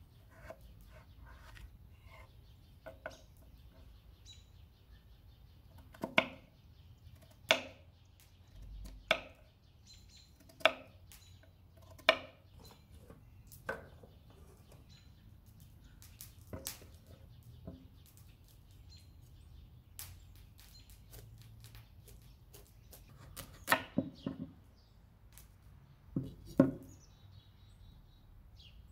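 A kitchen knife cutting through raw potato and striking a wooden cutting board: single sharp knocks about every second and a half, followed by a few more irregular knocks on the board later on.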